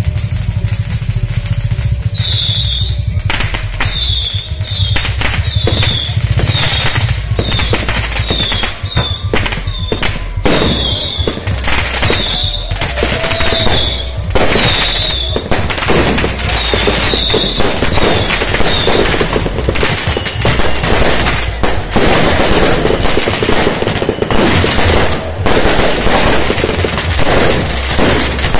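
Firecrackers and fireworks going off in a rapid, continuous string of bangs, with short high whistles repeating through the first two-thirds, over a steady low rumble.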